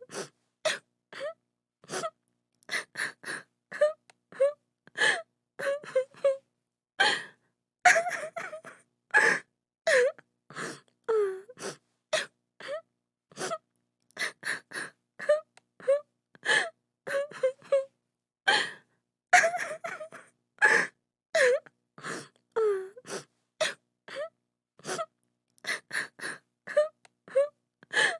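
A woman crying: short sobbing breaths and gasps in quick succession, broken by brief falling whimpers.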